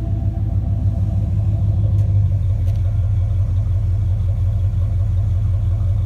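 1985 Chevrolet Caprice Classic idling steadily, its exhaust giving a loud, even low rumble at the dual tailpipes.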